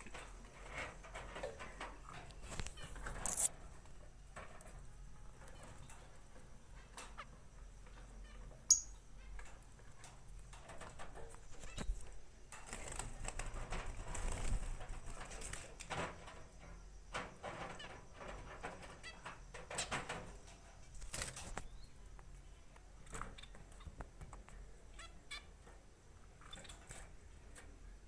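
Caged pet birds making scattered chirps and short calls, with clicks and rustles of movement; one sharp high call, the loudest sound, comes about nine seconds in.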